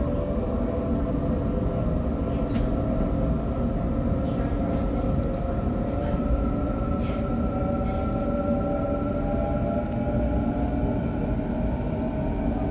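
Sydney Trains electric suburban train running, heard from inside the carriage: a steady rumble of wheels on track under a hum of several tones that drift slowly upward as the train picks up speed, with a few faint clicks.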